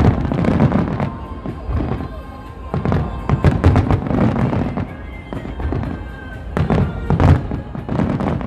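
Fireworks bursting overhead in a rapid series of deep booms and sharp cracks, coming in clusters. Music plays throughout.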